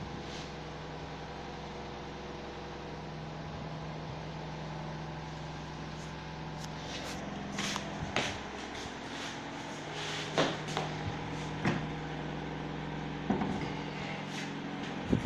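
Electric wall fan running with a steady hum, with a few light clicks and knocks from about six seconds in.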